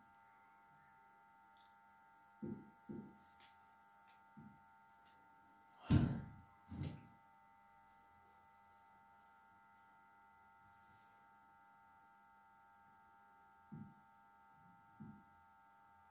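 Marker knocking softly against a whiteboard while drawing, a few scattered knocks with the loudest about six seconds in, over a steady electrical hum.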